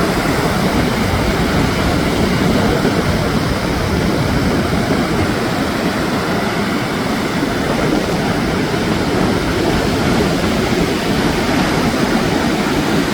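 Steady rushing of wind and surf at the seashore, with the wind rumbling unevenly on the microphone.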